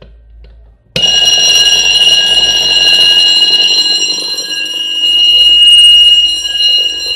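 Fire alarm bell ringing continuously and loudly, set off by the fire alarm control panel during a simulation test. It starts abruptly about a second in.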